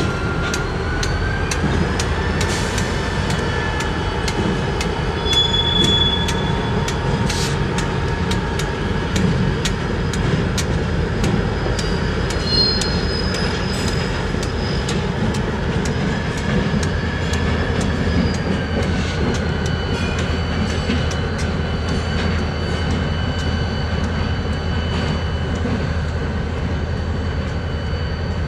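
CSX four-axle diesel locomotives rolling slowly past with their engines running, wheels clicking steadily over rail joints. A high whine rises about two seconds in and falls back near the two-thirds mark.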